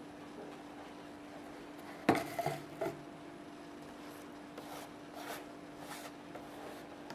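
A sharp knock with a short clatter about two seconds in, then a few soft scratchy rustles, over a low steady hum: small movements in a hamster cage bedded with wood shavings and fitted with a plastic tube.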